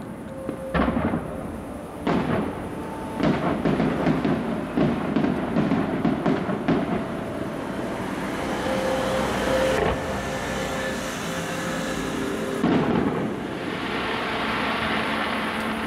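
Fireworks display: aerial shells bursting with booming bangs and a rolling rumble, many in quick succession in the first half. Near the end this gives way to a steadier crackle.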